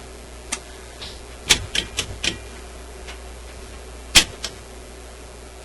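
Sharp clicks of the Grundig 2540 tube radio's push-button keys being pressed: a quick run of about five around the first two seconds, then the loudest click and a smaller one about four seconds in. The buttons are stiff and sticking.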